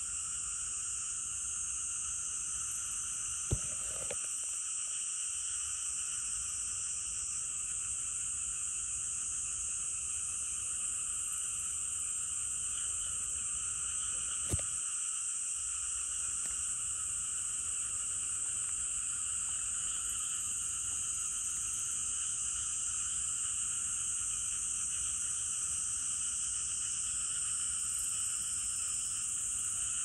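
A dense, steady chorus of calling insects that fills several pitch bands at once, with no breaks. Two sharp single clicks cut through it, a few seconds in and about halfway.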